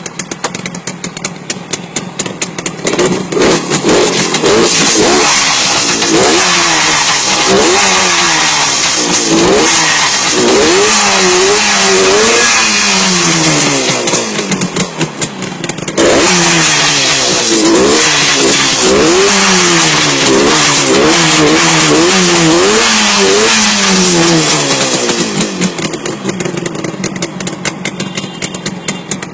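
Yamaha RD350 air-cooled two-stroke parallel-twin engine idling, then revved again and again in quick blips with the pitch rising and falling. It settles back to a steady idle near the end.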